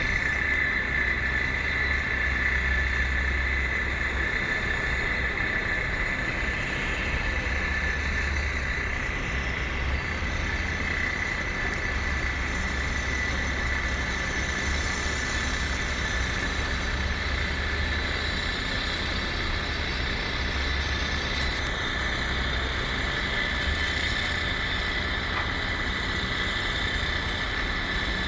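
Steady outdoor machinery and traffic noise at a construction site, with a constant high-pitched whine and wind rumbling on the microphone.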